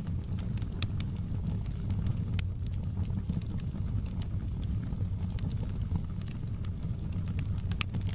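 Wood fire burning in a fireplace, crackling with sharp, irregular snaps and pops over a steady low rumble.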